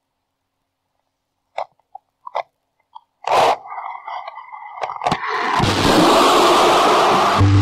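Recording from a wireless audio bug: a few sharp clicks and knocks, then a loud crackling jolt as the bug is tugged and pulled off. A loud steady hiss of static follows, as the bug's reception drops out.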